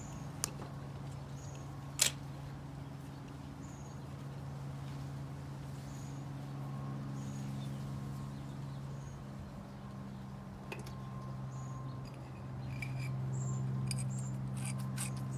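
Quiet handling of a brass gas fitting as PTFE thread-seal tape is wrapped onto its threads: a sharp click about two seconds in and a few small clicks later on, over a steady low hum with faint, short high chirps every second or so.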